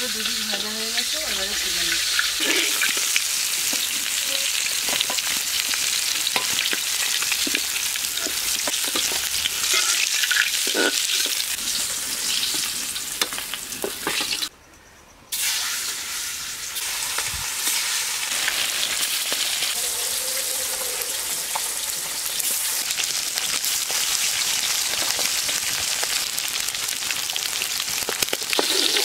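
Pieces of fish sizzling and crackling as they fry in hot oil in a steel kadai, stirred and turned with a spatula. The sizzle breaks off for about a second halfway through, then carries on.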